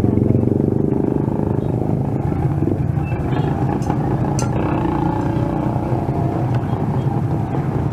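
Street traffic, with a motorcycle engine running close by as a steady low rumble.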